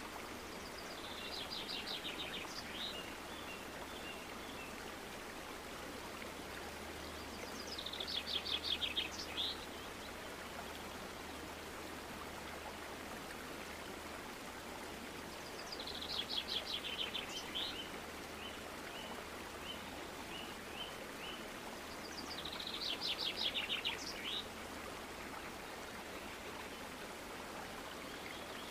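Steady rush of running water with a bird's rapid trilled call repeating four times, about every seven to eight seconds. Some trills are followed by a string of short, evenly spaced chirps.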